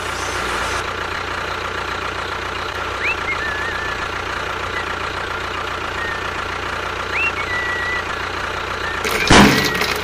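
Steady running of a tractor-style engine sound with an even low hum, broken by two short high chirps about three and seven seconds in and a louder burst of noise near the end.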